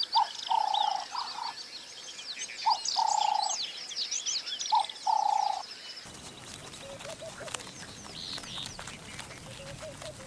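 Wild animal calls in the bush: a short note followed by a longer, steady call, repeated about every two seconds, over many quick high bird chirps. About six seconds in, the calls stop abruptly, leaving fainter natural background with scattered ticks.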